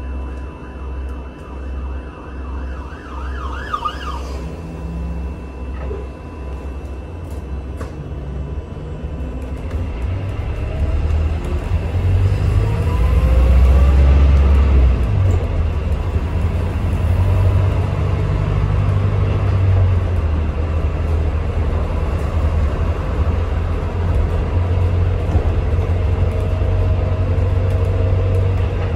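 Inside a Volvo B5L hybrid double-decker bus on the move: a low rumble that pulses at first, then grows louder from about ten seconds in, with a drivetrain whine rising in pitch twice.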